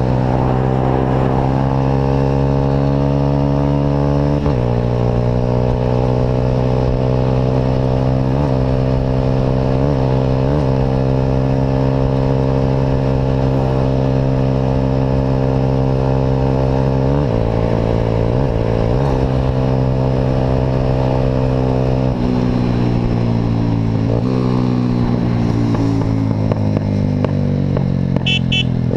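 Vehicle engine running through an Atalla aftermarket exhaust while under way, holding a steady note with several brief dips and steps in pitch as the throttle is eased and reopened. A few quick ticks sound near the end.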